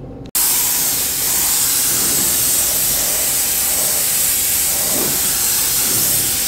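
Gravity-feed paint spray gun hissing steadily as it sprays clear coat; the hiss starts abruptly about a third of a second in.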